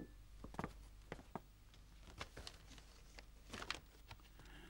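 Faint scattered rustles and soft ticks of a folded paper document being handled and opened, over quiet room tone.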